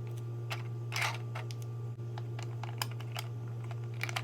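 Scattered light clicks and taps of hands handling stickers and the plastic body of an RC car, over a steady low hum.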